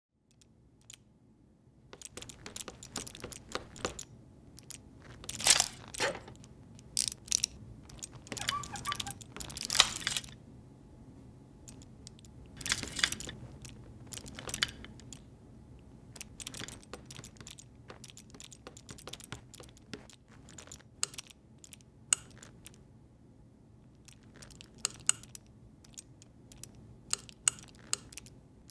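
Layered foley of many small mechanical clicks, ticks and rustles, made with hand props such as a ratchet, a hand-crank drill, a metal pulley and a leather jacket. Louder scraping swells come about five, nine and thirteen seconds in, over a faint steady hum.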